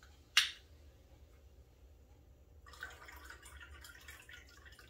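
A single sharp click about half a second in, then from about three seconds in a faint, crackly trickle of carbonated lemon-lime soda (Sprite) pouring from a can into a cocktail glass and fizzing.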